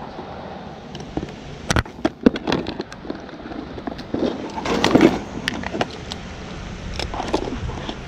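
Hand tools and meter leads clattering and rustling as someone rummages through a soft zippered tool bag: irregular clicks and knocks, with the busiest rattle about five seconds in.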